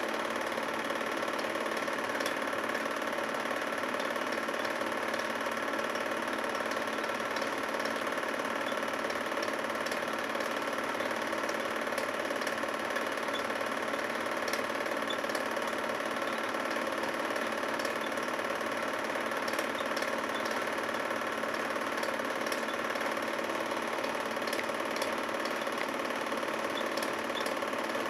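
Film projector running during the transfer of a silent home movie: a steady mechanical whir with faint scattered clicks.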